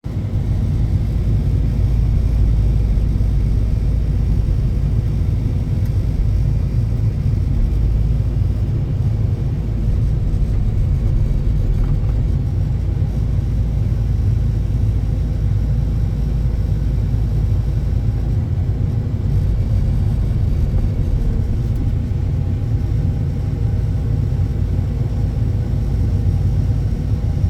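A heavy vehicle's engine running with a steady low rumble.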